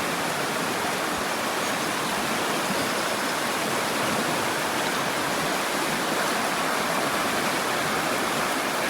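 River water rushing steadily over a shallow rapid, an even unbroken rush.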